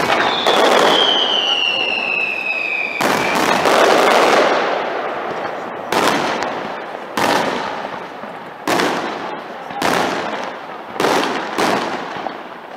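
Aerial firework shells bursting: about ten loud bangs, each trailing off in an echoing rumble, with a high whistle that slowly falls in pitch over the first few seconds.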